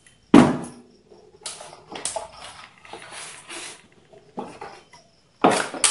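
A plastic UPS case being handled and moved about on a wooden table: a sharp knock about a third of a second in, then irregular clattering and scraping, and more knocks near the end.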